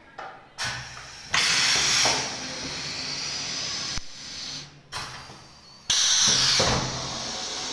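Deesha Engineering flat-bed screen printing machine running its print cycle on a board. There are two loud bursts of noise, about a second and a half in and about six seconds in, each easing into a steadier mechanical running sound.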